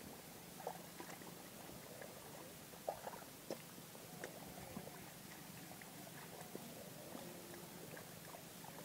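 Small splashes and squelches of hands groping through shallow muddy water, a handful of short soft sounds, over a low steady hum.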